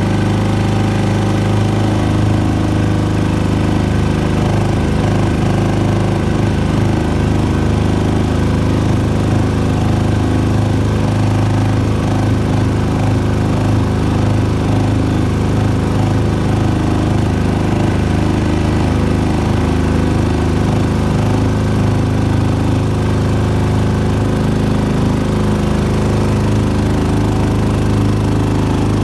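6.5 hp Predator single-cylinder four-stroke engine running at a steady throttle as it drives a small boat through shallow flooded marsh.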